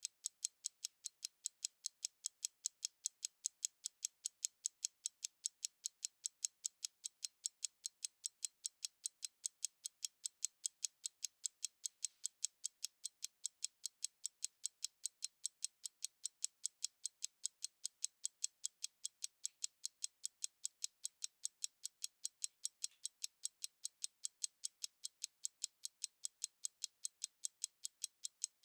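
Analog stopwatch ticking: a rapid, perfectly even run of light, high-pitched ticks, several a second, with no low end.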